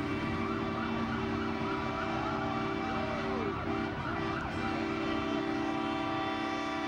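Police car sirens wailing in rising and falling glides, strongest in the middle seconds, over a steady droning tone.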